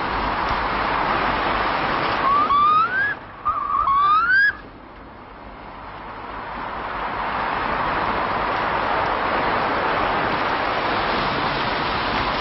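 A steady rushing noise with two rising whistles, each about a second long, a little past two and three and a half seconds in. Just after the second whistle the rushing drops away abruptly, then slowly swells back.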